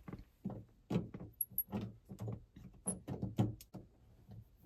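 Irregular light clicks, taps and small knocks of a truck dome light housing and bezel being handled and seated against the cab roof, with a few faint squeaks.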